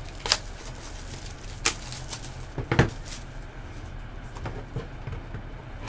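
Cardboard trading-card boxes handled and set down on a tabletop: a few sharp knocks and taps, the loudest a little under three seconds in.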